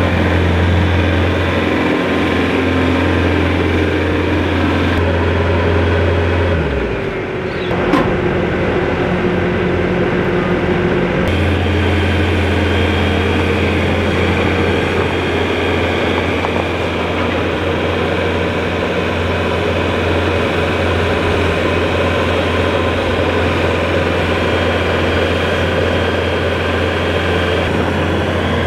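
A heavy vehicle engine running steadily at a low hum. The sound dips and changes briefly about seven seconds in, with a single sharp clunk about eight seconds in.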